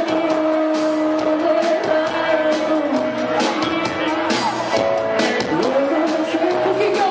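A live band playing a song with vocals: singing with long held notes over electric bass, drums with frequent cymbal strikes, and keyboards.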